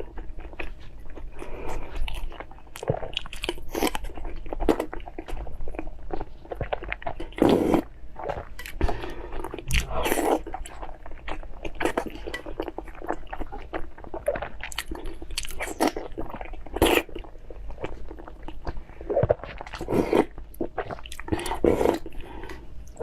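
A person chewing and biting food close to the microphone, an ASMR eating sound made of many short, irregular mouth and bite noises.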